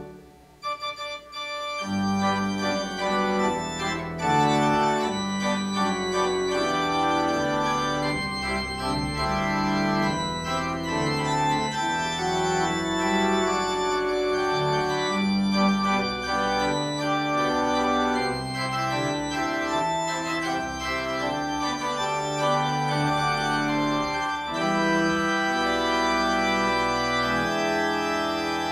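Church organ playing a postlude: slow, held chords that change every second or so. The music drops away briefly at the start and comes back in fully about two seconds in.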